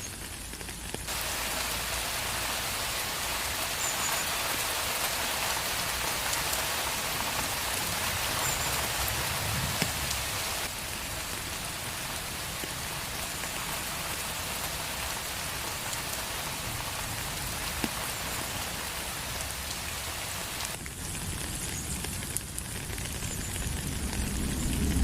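Steady rain falling on a street, an even hiss of many drops. Its loudness and brightness shift abruptly three times. A low rumble builds near the end.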